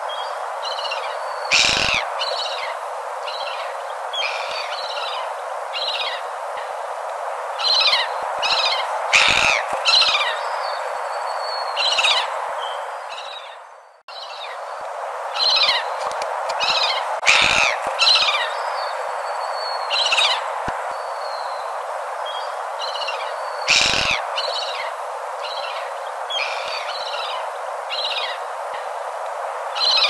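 Gulls calling, many short high cries over a steady hiss. The sound fades out about halfway through and starts again.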